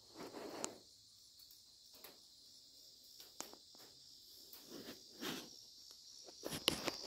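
Quiet outdoor background: a faint, steady, high-pitched insect chirring, with a few soft rustles and light clicks from the camera being carried around.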